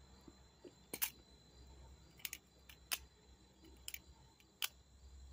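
Balisong (butterfly knife) handles clicking sharply as the freshly lubricated knife is flipped open and closed, about six separate clicks at uneven intervals.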